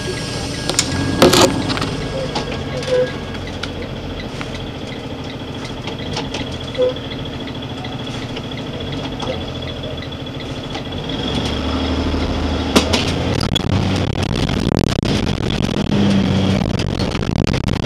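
Engine of a heavy vehicle running, heard from inside the cab, with a few clicks; it grows louder about eleven seconds in as the vehicle pulls away.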